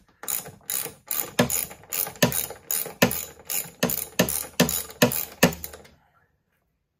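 Ratchet wrench clicking in quick, even strokes, about three a second, as 10 mm bolts on a snowmobile's chain case cover are loosened. The clicking stops about a second before the end.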